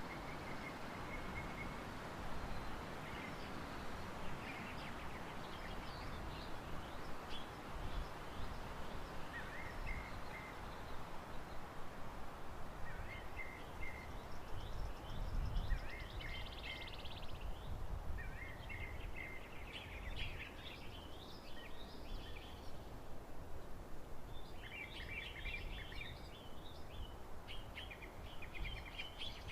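Steady rush of a waterfall's falling water, with birds chirping and trilling over it, their calls growing busier toward the end.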